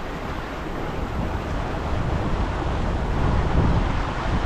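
Wind buffeting the microphone: a steady, loud rushing rumble, heaviest in the low end and rising and falling slightly in gusts.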